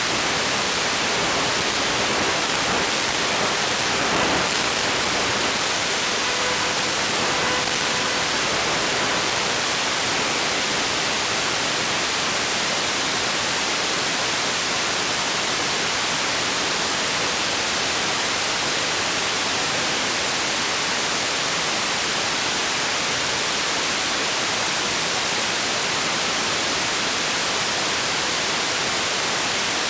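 Steady loud hiss of radio static, as recorded through an analog FPV video receiver, with no motor sound coming through. Faint whistling tones show through the hiss a few seconds in.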